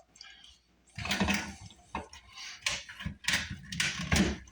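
PVC drain pipe and fittings being handled while solvent cement is applied: irregular plastic knocks, clatter and scraping, starting about a second in.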